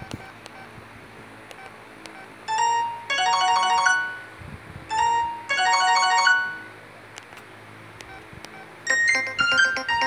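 LG KD3500 ringtones played through an LG CU500 phone's small loudspeaker. A short electronic melody of quick, bell-like notes plays twice, a couple of seconds apart, and a second, busier ringtone starts near the end.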